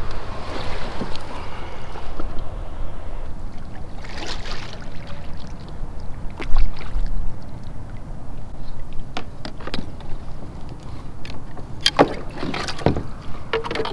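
Plastic fishing kayak being launched and boarded: water sloshing against the hull, a heavy thump about halfway through, and sharp knocks of gear against the hull near the end.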